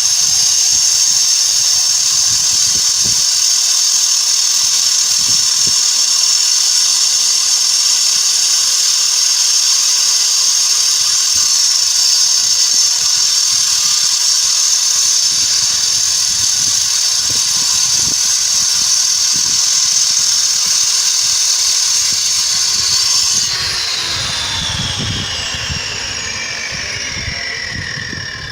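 Barovo 9-inch angle grinder, a 2300 W motor, running steadily at full speed with a high whine. About 23 seconds in it is switched off, and the whine falls steadily in pitch as the disc winds down.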